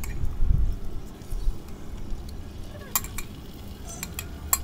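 Raw chicken pieces being handled in a steel bowl and dropped into a clay cooking pot, with a few sharp metallic clinks from the bowl, mostly in the second half.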